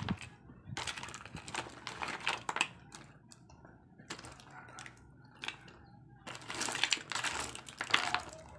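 Snail, clam and mussel shells clattering and clicking against each other and the plastic basin as a hand rummages through them, in a few spells of rattling with a quieter stretch in the middle.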